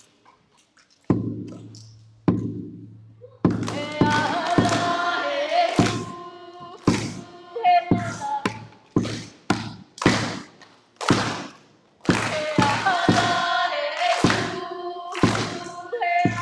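Hawaiian chant with drum accompaniment for a hula: two single sharp drum strikes, then from about three seconds in a steady beat of roughly two strikes a second under a chanting voice holding long notes.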